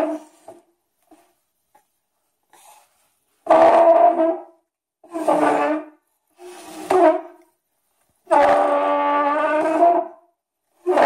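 A baby's loud, held "aah" vocalizations: a short one at the start, then four more with pauses between them, the last about two seconds long.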